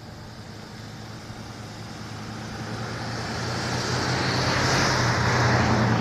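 A motor vehicle approaching: a steady engine hum with a rushing hiss, growing steadily louder throughout.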